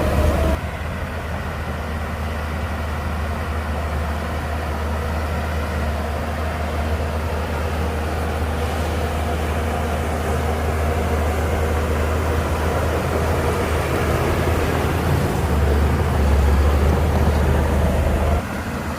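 Shantui DH17C2 bulldozer's diesel engine running, a steady low drone that builds gradually louder and then drops abruptly near the end.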